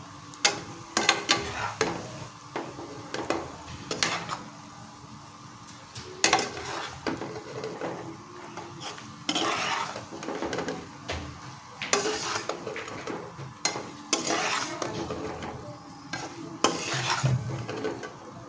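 A metal spatula stirs and scrapes okra pieces and masala around a nonstick kadai, in repeated bouts of scraping and clinking against the pan every second or two. A faint steady sizzle of frying runs underneath.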